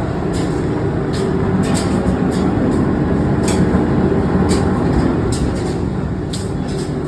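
Industrial laundry machinery running: a steady loud rumble and hum with irregular light clicks and rattles.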